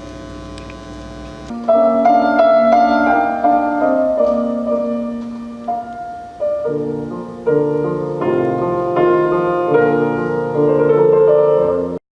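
A steady hum, then piano music starting about a second and a half in, playing chords and melody until it cuts off suddenly at the end.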